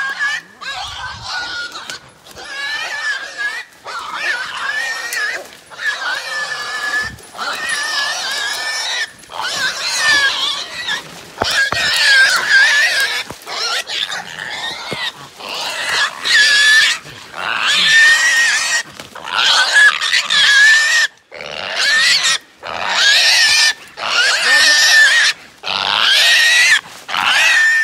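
Small caught wild hog squealing loudly and over and over, one long high scream after another, about a second apart with short breaks.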